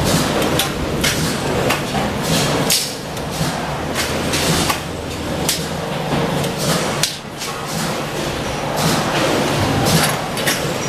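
Factory production-line noise: a steady machine hum with frequent sharp knocks and clanks of metal being worked, at irregular intervals throughout.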